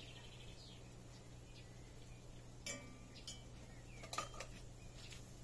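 Metal spoon clinking against a stainless-steel saucepan while food is spooned out, a few short ringing clinks from about halfway through.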